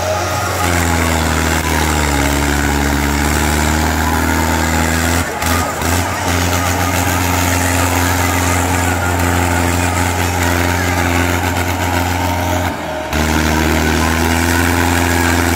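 Mahindra Arjun 605 tractor's four-cylinder diesel engine running steadily under heavy load while hauling a full trailer, its note sagging slightly and recovering near the start, with two brief drop-outs partway through.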